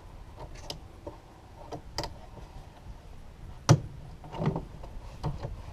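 Scattered clicks and knocks of a hand tool working on the truck's air filter housing and intake parts, the sharpest knock about two-thirds of the way in, followed by a short rattle of smaller ones.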